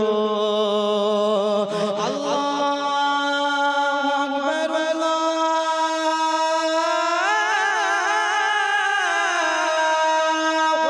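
A man's voice singing a naat unaccompanied, holding long wordless notes. The pitch steps up about two seconds in and again a little later, then wavers in an ornamented run before settling.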